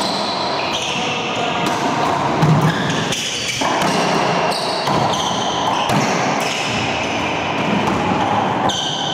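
Racquetball rally in an enclosed court: the ball smacks again and again off racquets, walls and floor, each hit echoing off the walls, with sneakers squeaking on the hardwood floor.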